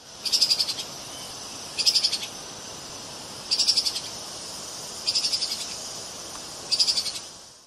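Treeshrew (Tupaia) calling: five short, high-pitched chattering trills of rapid pulses, each about half a second long and about a second and a half apart, over a steady high hiss.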